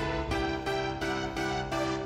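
Background music led by a keyboard melody, notes changing about three times a second.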